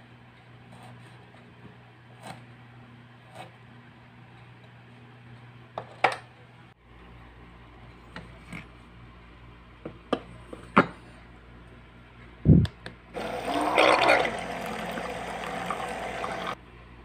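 Water from an electric bottle-top dispenser pump pouring into a small steel colander while squash cubes are rinsed by hand, a steady rush that starts about two-thirds in and cuts off suddenly near the end. Before it, light knife taps on a small wooden cutting board, a few metal clinks and one loud thump.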